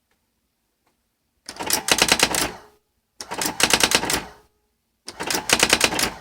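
Brother GX6750 electronic daisy-wheel typewriter printing in three quick bursts, each about a second of rapid, evenly spaced strikes, with short pauses between them.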